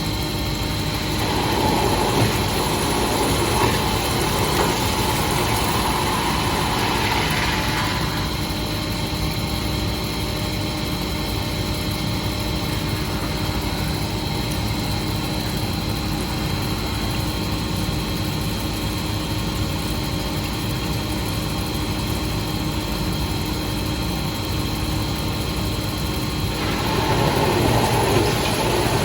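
CNC drilling special-purpose machine running, a steady machine hum with a constant high whine. A rougher, louder spell comes in the first few seconds and again near the end.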